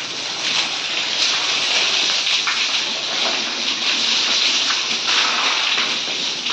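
Water from a hose sprayed hard against concrete walls: a steady hiss of spray and splatter.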